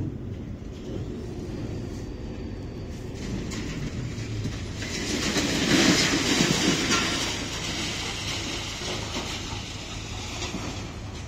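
Steady mechanical rumble and rattle of heavy port machinery, swelling to a louder clattering peak around the middle and then easing off.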